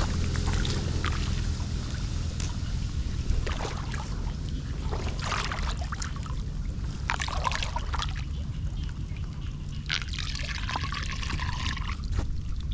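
Brown floodwater flowing and gurgling down into a blocked street drain, with irregular splashes over a steady low rumble of moving water.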